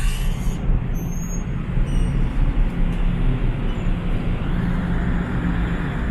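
Steady low drone of the Sunflower Gold car ferry's engines, with an even rushing hiss over it.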